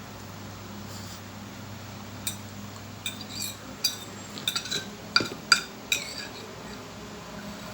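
Cutlery clinking and scraping against a plate of food, about ten quick, uneven strikes roughly two to six seconds in, over a faint steady hum.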